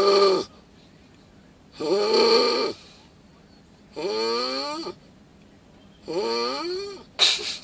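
Rhythmic snoring: a loud, pitched snore about every two seconds, each under a second long, rising and then falling in pitch. There is a shorter, sharper snort just after seven seconds.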